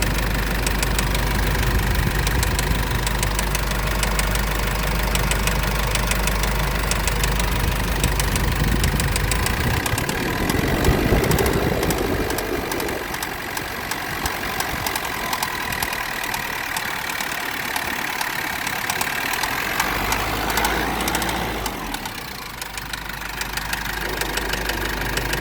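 2.8-litre engine running with a steady, rapid rhythmic knock in the engine, held at a slightly raised speed of about 1000 rpm. The engine's sound swells briefly about ten seconds in and then settles to a different note.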